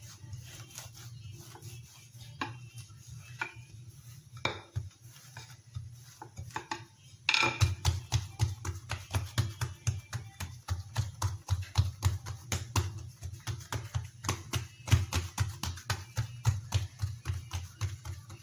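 Hands pressing, patting and stretching a thin sheet of bread dough on an oiled marble countertop. The first few seconds hold a few scattered taps. About seven seconds in, a quick, steady run of soft thumps and light slaps begins, several a second.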